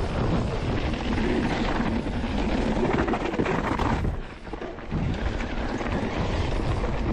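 Wind buffeting the microphone over the rumble and rattle of a mountain bike riding a trail, with a short lull about four seconds in.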